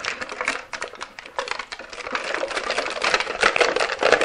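Cubes of white almond bark being popped out of a plastic tray and dropped onto a layer of chocolate chips in a slow cooker crock: a quick, dense clatter of clicks and knocks.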